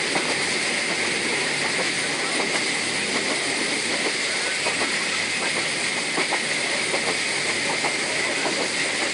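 Train running along the track: a steady noise of the moving train with many small clicks and rattles scattered through it.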